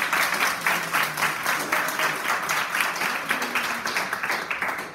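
Audience applauding: many people clapping in a room, the clapping easing off near the end.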